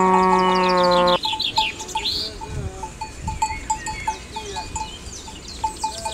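A long, steady low-pitched call cuts off abruptly about a second in. Birds then chirp with quick downward-sweeping notes, over a short note repeated about three times a second.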